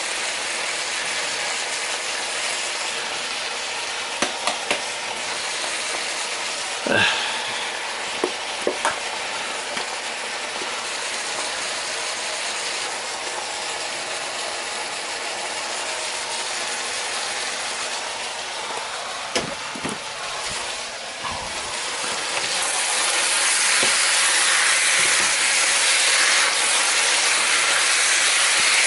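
Diced pork tenderloin sizzling in a frying pan, with a few sharp clicks from handling a garlic salt shaker. About two-thirds of the way through the sizzle grows louder as the meat is stirred with a spatula.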